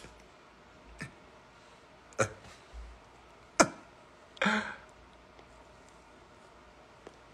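Low room noise broken by a few short, sharp clicks, the loudest about three and a half seconds in, and a brief throat sound from a man a second later.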